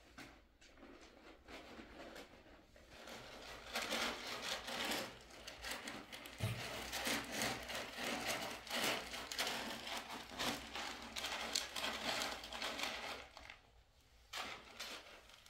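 Cat eating from a bowl: a dense, irregular run of crunches and clicks lasting several seconds, then stopping. A short scratch follows near the end.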